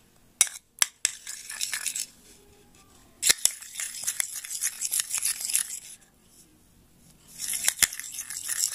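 Metal spoon stirring and scraping a thick paste around a ceramic bowl, in a few spells with quiet gaps between. Several sharp clinks of the spoon against the bowl come among them.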